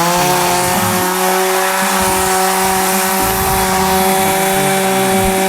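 Two-stroke chainsaw engine held at high revs, running at a steady pitch.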